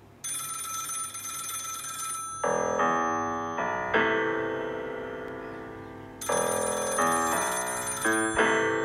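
Telephone ringing in two trilling bursts of about two seconds each, one at the very start and one about six seconds in, with slow musical notes that ring out and fade between and under the rings.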